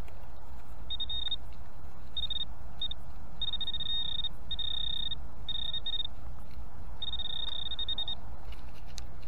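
Garrett ACE 200i metal detector giving a broken run of high-pitched beeps, some short and some over a second long, as the coil passes back and forth over a target. A low steady rumble lies underneath.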